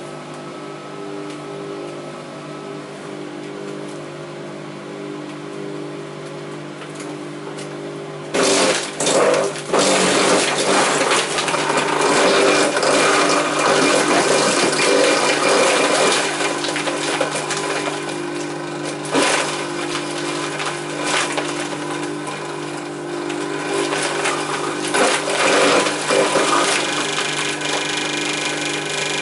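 Garden shredder's motor running with a steady hum; about eight seconds in, branches fed into its hopper are chewed up with loud crunching and cracking that goes on for several seconds, then returns in shorter bursts as more twigs go in.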